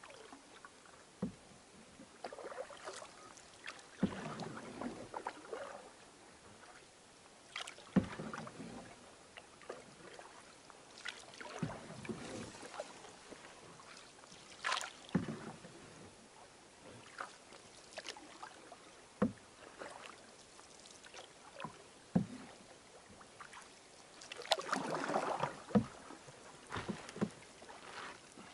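Canoe being paddled on a calm stream: paddle strokes splashing every few seconds at an unhurried pace, with sharp knocks now and then and a longer splashing wash near the end.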